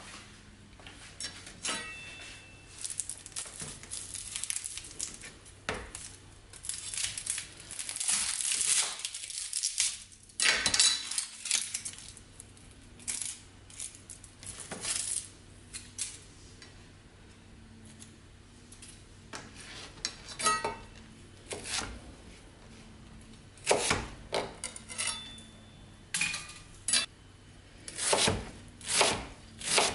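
Dry, papery onion skin crackling and tearing as a yellow onion is peeled by hand. In the last several seconds a knife cuts down through the onion onto the cutting board in a few separate sharp strokes.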